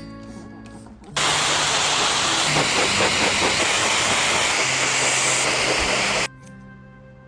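Water spraying hard from a shower head, a loud steady hiss that starts suddenly about a second in and cuts off about five seconds later, over faint background music.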